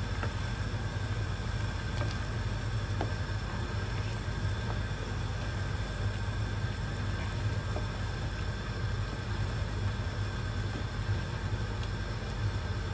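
Steady low hum and rushing noise from the stove area, with a few faint soft knocks of a spoon stirring a pot of simmering liquid.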